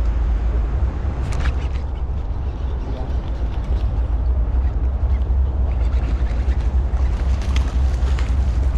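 A hooked pink salmon splashing at the water's surface a few times near the end, over a steady low rumble.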